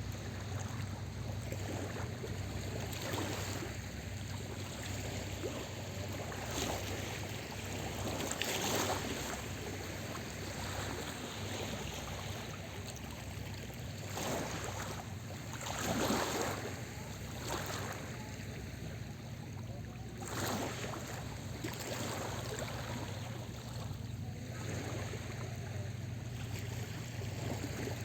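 Small sea waves washing onto a beach, each surge swelling and falling back every few seconds, the largest about sixteen seconds in, over a steady low hum.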